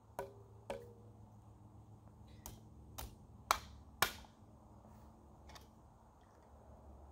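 Hand tool knocking on a metal piece clamped in a small bench vise. There are two taps with a short metallic ring, then four sharper strikes about half a second apart, the last two loudest, and a faint tap near the end.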